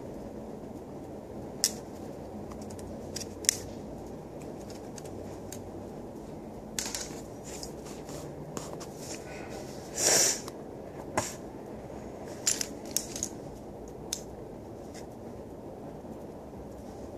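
Plastic Lego bricks clicking and clattering as they are handled and pressed together: scattered sharp clicks, with a louder half-second rattle about ten seconds in and a quick run of clicks a little later, over a steady low hum.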